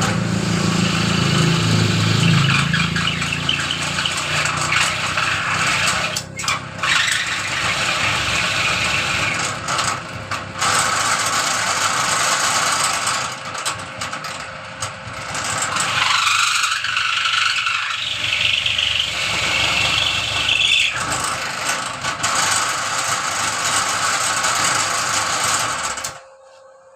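Dowel-pointing machine running, its cutter shaving the end of a 30 mm wooden broom-handle dowel to a point. A loud, steady machine noise that turns to a higher whine for a few seconds past the middle, then cuts off suddenly near the end.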